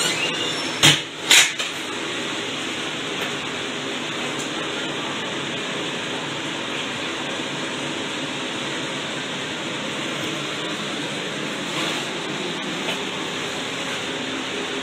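Steady background hiss, with two sharp knocks a second or so in.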